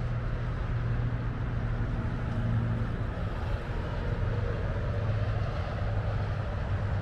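Diesel locomotive hauling a passenger train, its engine a steady low drone over a continuous rumble.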